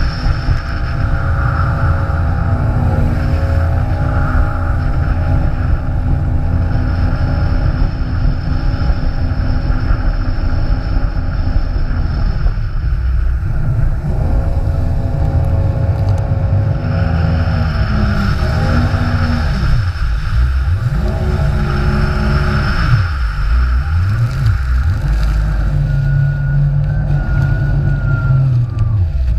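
Jet ski engine running at speed, with a loud rush of wind and water on the hull-mounted camera. In the second half the engine pitch falls and rises several times as the throttle is eased off and reopened, then settles to a steady tone near the end.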